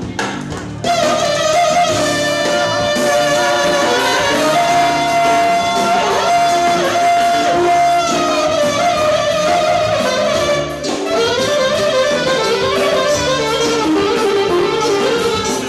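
Live band music led by a saxophone: it holds one long high note for several seconds, then plays a bending, ornamented melody, over a full accompaniment.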